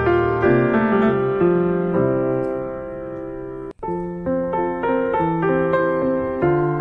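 Background piano music: a slow melody of held notes over lower chords. The sound cuts out for an instant just under four seconds in.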